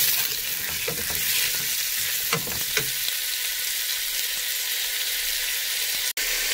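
Chopped red onions sizzling in olive oil in a stainless steel pot, with a wooden spatula scraping the pan a few times as they are stirred in the first three seconds; the sizzle then goes on steadily. The sound drops out for an instant near the end.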